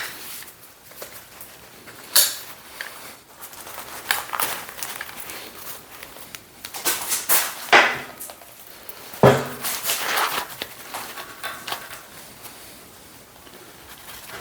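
A heavy steel lifting magnet being wrestled into place under a steel welding tabletop: irregular metal knocks and clunks with scraping and rubbing between them, the loudest clunk a little past halfway.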